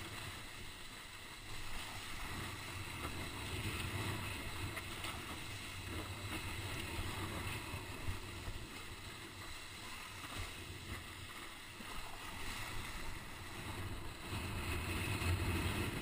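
Wind rushing on the action camera's microphone and water rushing under a windsurf board sailing fast over choppy sea: a steady, noisy rush with a low rumble underneath, a little louder near the end.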